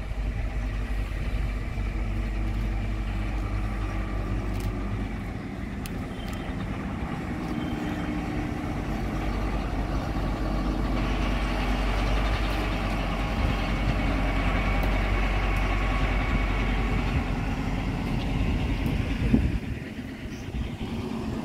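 Small diesel shunting locomotive's engine running steadily as it moves slowly along the yard tracks. It gets louder about halfway through and drops off near the end.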